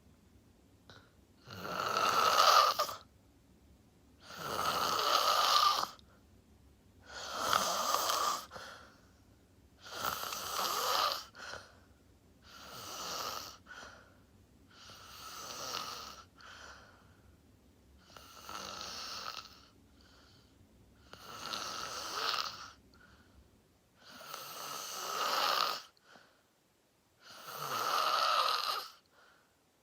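A sleeper snoring in a slow, steady rhythm: about ten long, raspy snores, one every three seconds or so, with quiet gaps between breaths.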